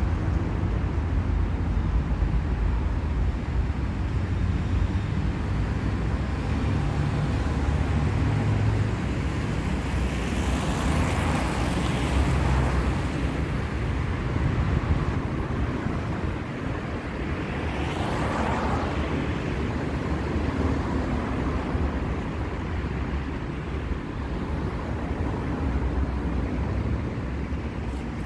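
City street traffic: a steady low rumble of engines, with two vehicles passing close by, about eleven seconds in and again about eighteen seconds in.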